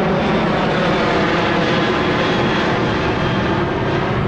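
Airliner climbing overhead just after takeoff, its engines noisy and steady.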